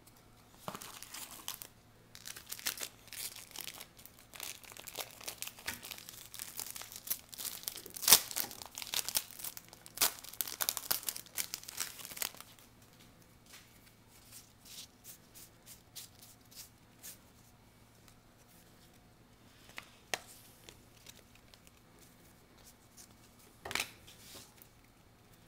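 A trading-card pack's foil wrapper torn open and crinkled, a dense run of crackling for about the first half, then fewer, lighter rustles and clicks as the cards are handled, with a couple of sharper crinkles near the end.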